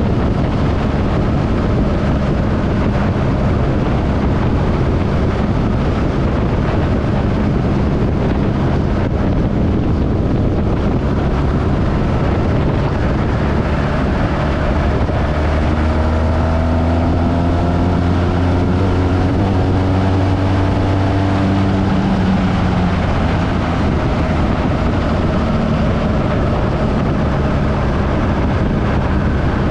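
BMW motorcycle riding in traffic: a steady engine drone under wind rushing over the microphone, with a rising engine note for several seconds about halfway through as it speeds up.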